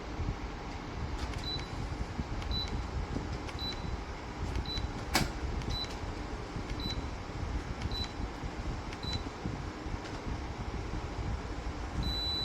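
Dreo tower fan's control beeping: short high beeps about once a second, eight in a row, then a longer beep near the end, as its settings are changed, over the steady hiss of the fan running. A single sharp click about five seconds in.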